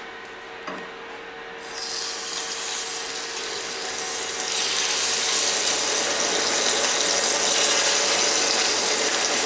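Scallops sizzling as they are laid into hot oil in a frying pan. The sizzle starts about two seconds in and grows louder as more scallops go in, then holds.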